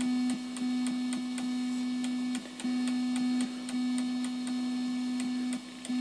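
Midland 9001Z CB radio's audio circuit putting out a steady digital-sounding buzz, a low tone with fainter higher tones and a regular ticking about three times a second, heard through monitor speakers. The buzz steps louder and quieter a few times, with brief dips, as the channel knob is turned, because its strength changes from channel to channel. The buzz is a noise fault in the radio's audio circuit.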